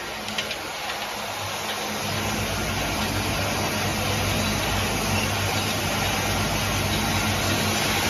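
Cork cap assembly machine running: a steady mechanical hum with hiss, a few light clicks near the start, and the low hum growing fuller about two seconds in.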